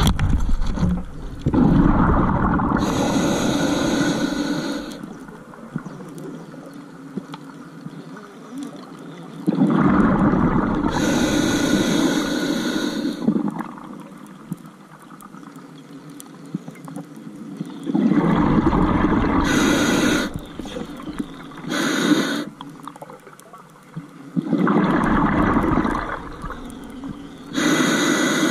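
Scuba diver breathing through a regulator: four slow breaths about eight seconds apart, each a rush of bubbling noise with a hiss, and a faint steady hiss between them.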